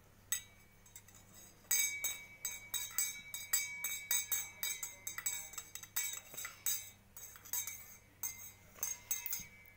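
Metal spoon stirring salt into water in a stainless steel tumbler, clinking quickly and unevenly against the sides, each strike ringing briefly. One clink comes just after the start, and steady clinking sets in about two seconds in.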